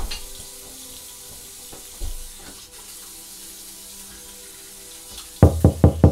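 A sharp thump at the start and another about two seconds in, over a low hiss. Near the end comes a fast run of heavy knocks, about six a second.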